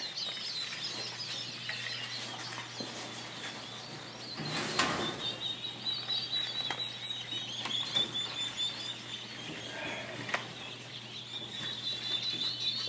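A crowd of newly hatched bobwhite quail chicks peeping, many short high cheeps overlapping without a break. About five seconds in comes a brief rustle.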